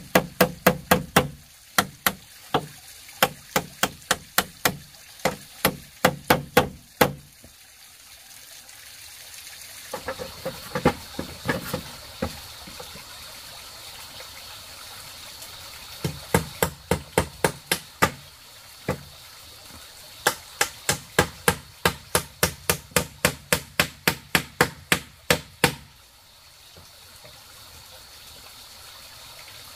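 Claw hammer driving nails into a bamboo-pole wall: quick runs of sharp strikes, about three a second, broken by pauses of a few seconds, with the strikes stopping about four seconds before the end. A steady hiss runs underneath.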